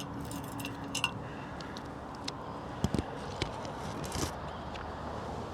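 Metal hand tools clinking, with scattered sharp clicks and a couple of dull knocks as sockets and a socket drive are handled.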